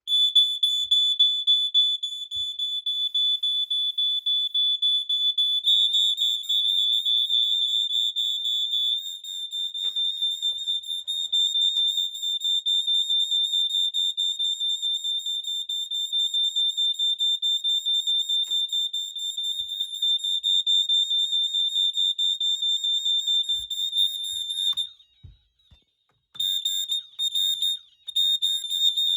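Several Firex G6 ionization smoke alarms going off together after being sprayed with canned test smoke. Their piezo horns give a loud, high-pitched, continuous shrill tone, with another alarm joining about six seconds in. The horns cut out briefly near the end, then start again in broken bursts.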